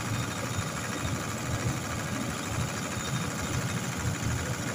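Large diesel engine of a generator set running steadily at constant speed, heard close up.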